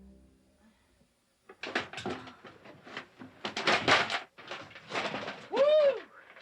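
Animal noises: a run of rough, noisy cries and scuffles, then near the end one short call that rises and falls in pitch, like a meow.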